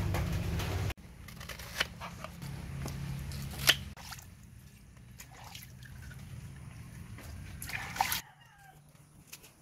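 A low steady hum cuts off about a second in, giving way to running water trickling and splashing over a wet wooden ledge while taro stalks and leaves are washed in a plastic bowl. A few short, sharp, louder sounds stand out, about two, four and eight seconds in.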